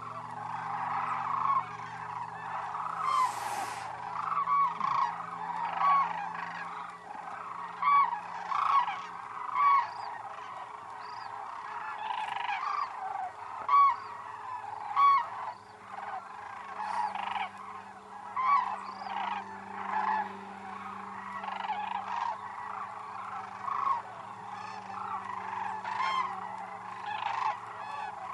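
A large flock of sandhill cranes calling together, a dense chorus of many overlapping calls with several louder individual calls standing out.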